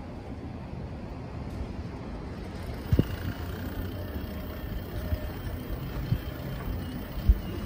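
Steady low rumble of riding a bicycle along a city street, with a few short low thumps, the loudest about seven seconds in.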